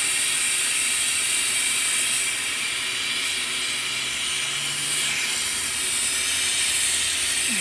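Steady, loud hiss of air at a CNC router's open spindle, with a faint low hum coming in around the middle.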